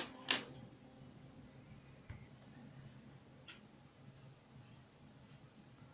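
Two sharp clicks near the start as the coloured pencils are handled, then faint, scattered scratches and taps of a coloured pencil on sketchbook paper.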